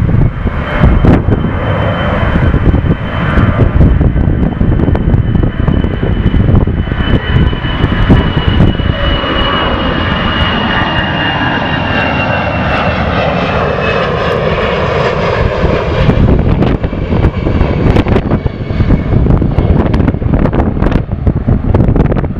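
A Boeing 737-800's CFM56 jet engines roar as the airliner rolls out on the runway after landing, with a high whine that slowly falls in pitch and swells loudest as it passes. Gusty wind buffets the microphone with repeated thumps.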